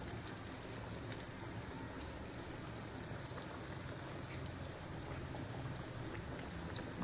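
Vermicelli-coated chicken cutlets deep-frying in hot oil: a steady, faint sizzle with small scattered pops.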